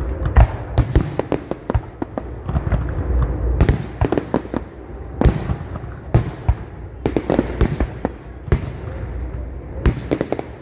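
Fireworks display: shells bursting in a rapid, irregular series of sharp bangs, several a second, over a continuous low rumble.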